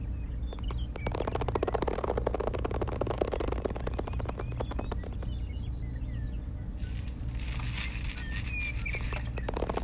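Rapid crackling and clicking from hands fitting a fabric drive belt over the plastic gear and pulley of a miniature model, dense for the first few seconds and again near the end. Birds chirp faintly behind it over a steady low hum.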